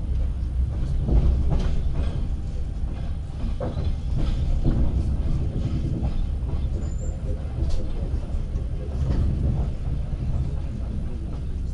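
Passenger train coach rolling out of a station, heard from inside the carriage: a steady low rumble with irregular clicks and knocks from the wheels on the track.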